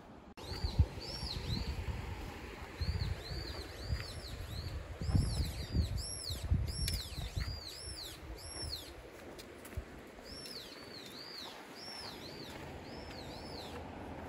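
A small songbird repeating short, high, arched chirps in twos and threes. Under it, low rumble and a few dull thumps, the loudest about a second in.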